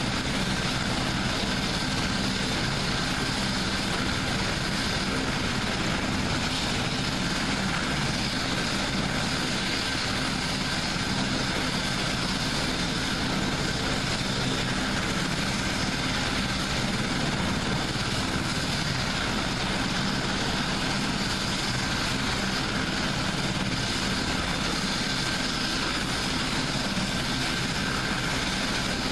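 AgustaWestland HH-101A Caesar helicopter running on the ground with its main rotor turning: a steady rumble of turbine and rotor noise, with a thin high whine over it.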